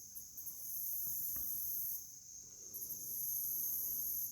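Insects trilling: a steady high-pitched drone, with a still higher layer that switches on and off every second or so.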